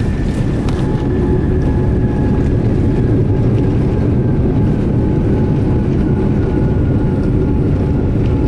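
Cabin noise of a Boeing 787-9 on its landing rollout: a loud, steady low rumble of wheels and engines as the jet decelerates, with a faint whine slowly falling in pitch.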